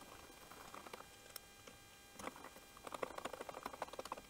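Faint clicks and small rattles of a hand hex driver turning the mounting bolts into a Briggs & Stratton Quantum engine's plastic primer base assembly. The ticks are scattered at first and come quickly and close together from about three seconds in.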